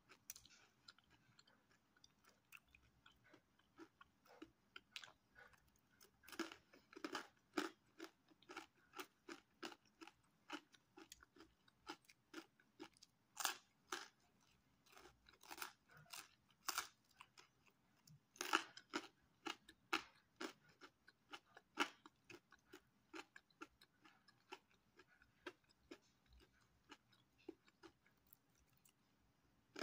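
Crisp pizza crust being bitten and chewed: irregular crunches, with runs of louder crunching several times.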